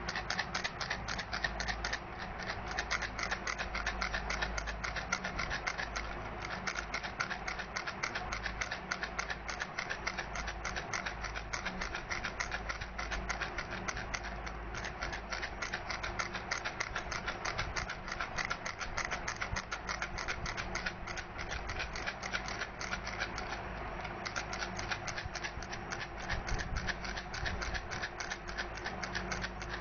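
Baby rattle being shaken steadily, a fast unbroken stream of small rattling clicks.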